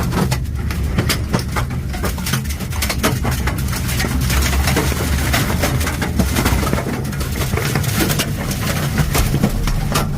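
Tornado winds roaring around a vehicle, with a heavy low rumble of wind buffeting and many sharp hits of debris striking the body and windows throughout.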